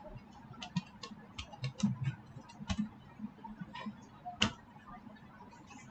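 Computer keyboard keys clicking as a word is typed, in an irregular run of single keystrokes, with one louder click about two-thirds of the way through.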